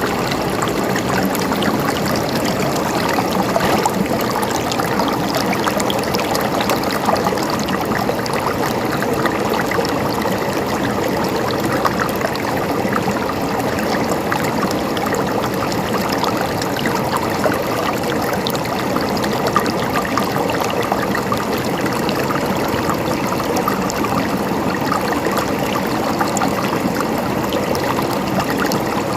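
River water flowing steadily over stones, a continuous rushing with fine splashing and trickling.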